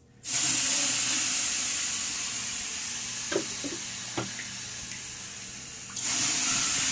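Water poured onto a sauna heater's hot stones, hissing into steam. The hiss starts suddenly, slowly fades, then surges again near the end as more water goes on.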